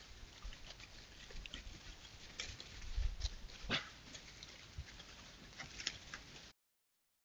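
Wild boar moving through dry leaf litter, heard through a trail camera's microphone: scattered rustles, cracks and a few soft low thuds. The sound cuts out abruptly about a second before the end.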